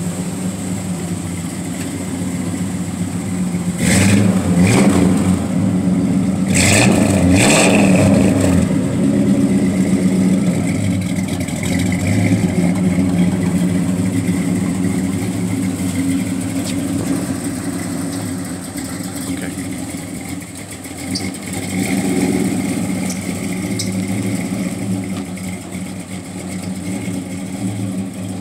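1948 Ford street rod's 350-cubic-inch V8 idling, revved up briefly twice, about four and seven seconds in, then settling back to a steady idle.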